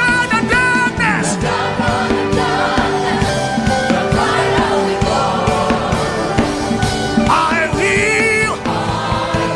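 Gospel worship music: a singer with vibrato over a full band with a steady drum beat.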